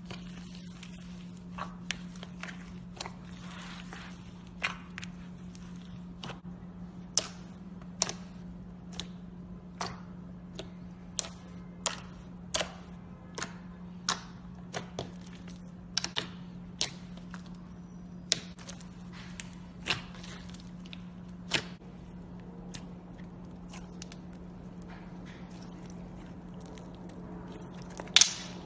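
Slime being squeezed and pressed, giving sharp pops and clicks about once a second, with the loudest pop near the end. A steady low hum runs underneath.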